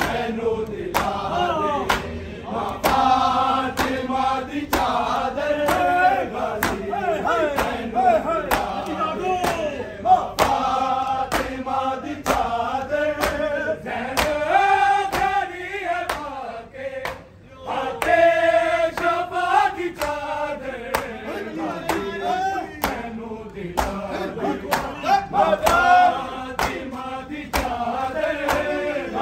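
Group of men chanting a Shia noha (Muharram lament) together, with regular sharp slaps of matam, hands beating on chests, keeping time under the singing.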